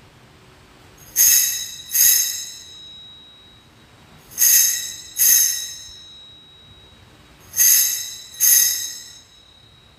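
Altar bell rung at the elevation of the chalice during the consecration: three pairs of bright ringing strikes, the two strikes in each pair just under a second apart and the pairs about three seconds apart, each ringing out briefly.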